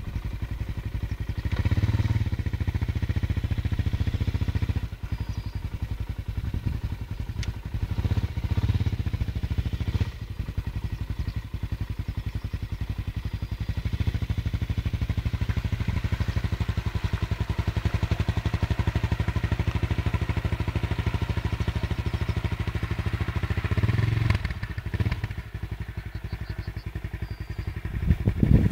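Suzuki LT-Z400 quad's single-cylinder four-stroke engine running steadily as the quad wades through shallow water, revving up several times, with the sharpest rev near the end as it climbs out of the water.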